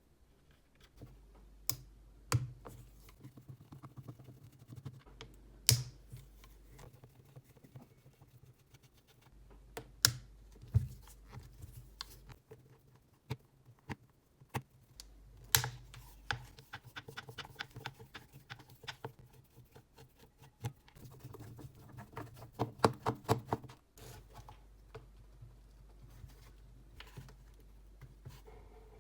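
Scattered sharp clicks, taps and light scrapes of small hard plastic and metal parts being handled, with a quick run of clicks about three quarters of the way in.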